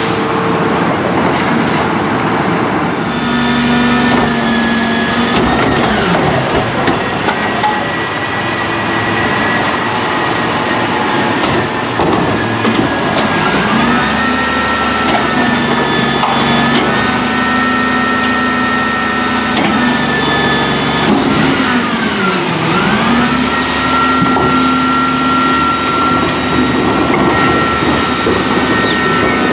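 Rear-loading garbage truck's diesel engine running at raised idle while its hydraulic packer cycles. The pitch drops and climbs back about three times, with a few knocks.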